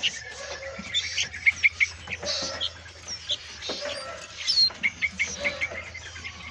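Many caged songbirds chirping and calling at once: a dense, overlapping mix of short sharp chirps and quick falling whistles. A steady low hum runs underneath.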